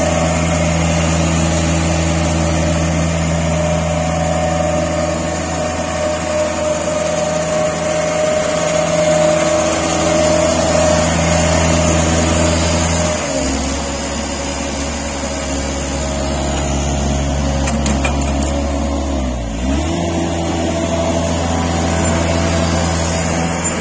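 Toro Reelmaster 450-D reel mower's diesel engine running steadily. Its pitch drops about halfway through, then sags briefly and picks back up a few seconds before the end.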